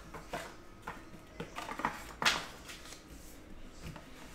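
Hands handling and opening a trading card box: light scraping and rubbing with scattered soft taps, and a sharper knock about two seconds in.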